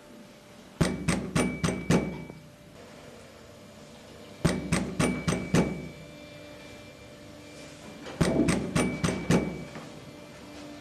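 Sharp knocking in three bursts of five quick, evenly spaced knocks, about three a second, with a pause of a couple of seconds between bursts; each knock rings briefly.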